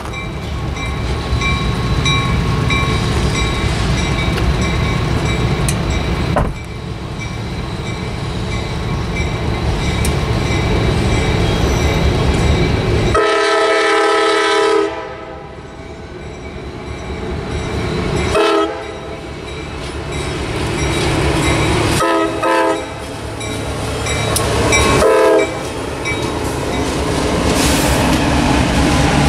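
An approaching CSX diesel freight train sounding its multi-chime horn in four separate blasts for a grade crossing, then rumbling past with wheels clacking over the rails as the lead locomotive goes by. A steady low rumble fills the opening seconds and cuts off abruptly about six seconds in.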